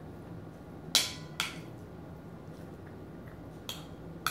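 Metal spoon clinking and scraping against a ceramic dinner plate while food is scooped up: four short clinks, two about a second in and two near the end.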